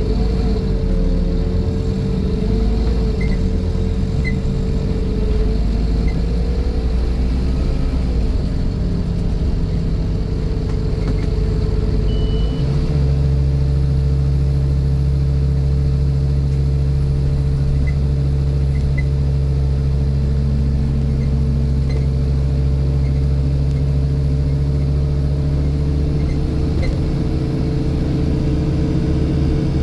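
Scania N230 bus under way, its engine running with a steady drone and a constant buzzing tone over it. About twelve seconds in the engine note shifts and then holds even.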